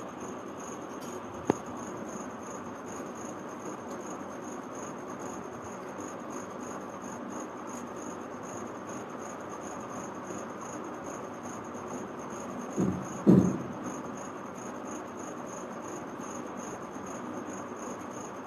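A steady, high-pitched cricket trill over constant room hiss. A single sharp click comes about a second and a half in, and two short, louder sounds come around thirteen seconds in.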